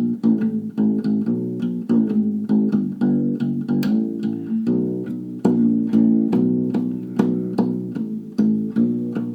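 Steel strings of a Fender acoustic-electric guitar, loosened down to a low, bass-like pitch, plucked and slapped in a quick rhythmic riff, about three or four notes a second. The slack strings give a deep, rubbery twang like a bass guitar.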